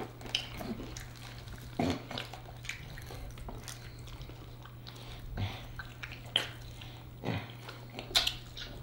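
Close-miked eating sounds of chicken wings being chewed and sucked clean off the bone: scattered wet smacks and clicks of lips and mouths. A steady low hum runs underneath.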